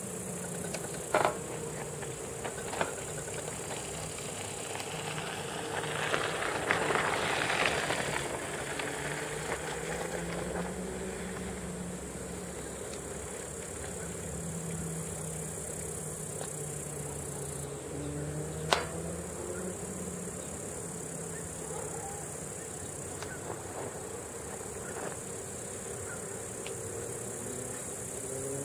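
Distant PKP ET22 electric freight locomotive humming steadily as it approaches slowly, under a continuous high buzz of insects in the grass. A couple of sharp clicks, about a second in and again near the middle.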